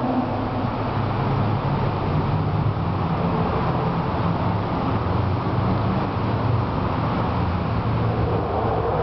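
Steady low rumble of car engines idling and traffic moving inside a road tunnel, with no revving.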